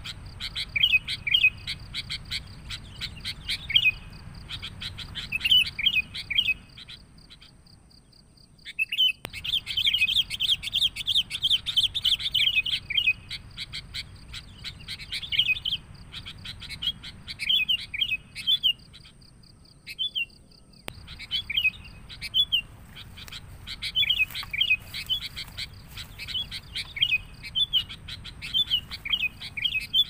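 Sooty-headed bulbuls (kutilang) calling in noisy, excited bursts of quick chirping phrases, the agitated call used as a lure for wild bulbuls. The chatter thickens into a dense run about nine seconds in and pauses briefly twice.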